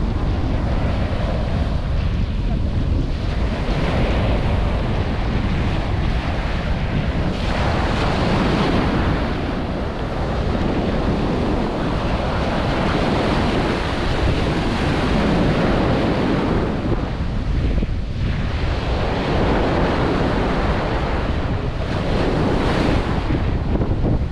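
Small waves breaking and washing up the sand at the water's edge, the wash swelling and easing every few seconds, with wind buffeting the microphone.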